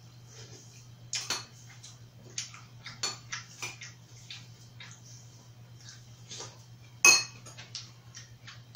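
Metal spoon and chopsticks clinking and tapping against ceramic bowls and plates: a scatter of small, sharp clinks, the loudest about seven seconds in, over a faint steady low hum.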